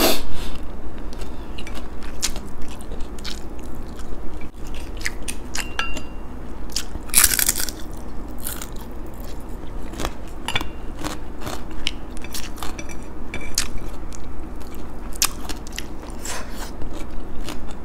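Close-up eating sounds: a person chewing and biting fried beef tapa and crisp dried fish, with many small crunchy clicks and one louder crunch about seven seconds in.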